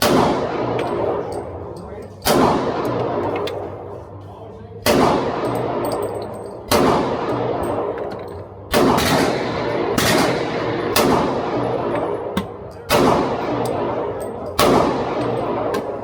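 Nine .40-calibre pistol shots fired singly at a slow pace, one every one to two and a half seconds, each followed by a long echoing decay.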